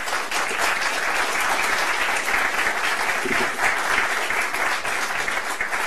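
Audience applauding in a hall, a steady dense patter of many hands clapping.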